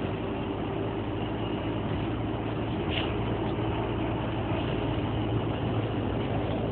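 Optare Solo midibus's diesel engine running with a steady low hum, heard from inside the passenger saloon.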